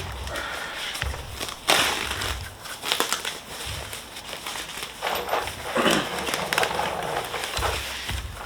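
Plastic packaging crinkling and rustling as freshly powder-coated wheel parts are unwrapped and handled, with irregular crackles and a few sharp knocks.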